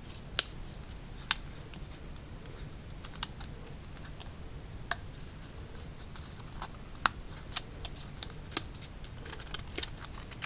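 A hobby knife blade cutting through the small tabs holding a laser-cut wood wall piece to its carrier sheet: irregular sharp clicks and ticks, a few much louder than the rest, over a steady low hum.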